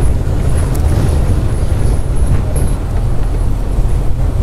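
Open-top Maruti Gypsy safari jeep driving along a bumpy dirt forest track: steady rumble of engine and road, with wind buffeting the microphone.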